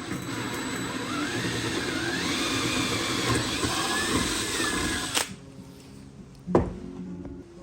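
Power drill running continuously, its whine rising and falling in pitch, then stopping abruptly about five seconds in. A single knock follows about a second and a half later.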